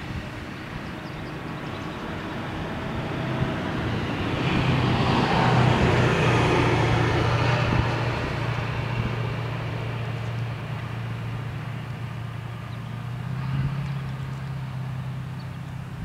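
Steady low engine hum with a vehicle passing, loudest about five to seven seconds in and then fading, with a smaller swell near the end.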